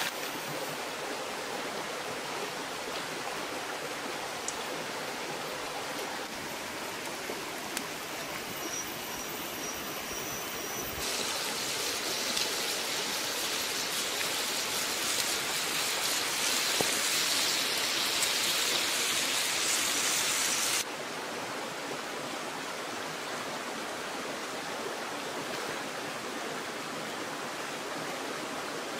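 Snails and chilies simmering in a clay pan over a wood fire: a steady hissing sizzle, brighter and louder for about ten seconds in the middle, starting and stopping abruptly.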